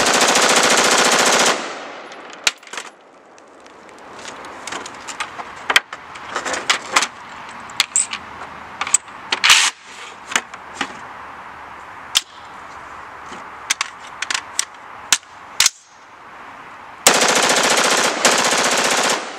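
Full-auto AR-15 rifle firing two sustained bursts, one of about a second and a half at the start and one of about two seconds near the end. In between come scattered sharp clicks and knocks at a much lower level.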